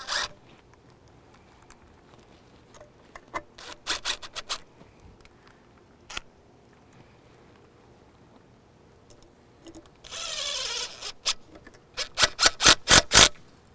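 Cordless drill/driver starting the bolts of an outboard water pump housing: scattered taps and clicks of tool and bolts, then a short burst of the drill running with a falling whine about ten seconds in. Near the end comes a rapid string of about seven sharp clicks.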